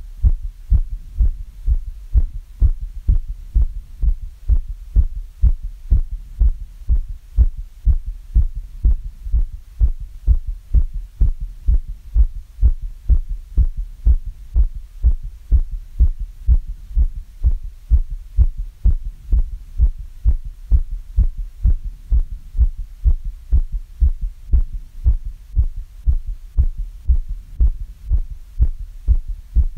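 A human heart beating after exercise, still recovering from the effort: a steady, regular rhythm of paired low lub-dub thumps.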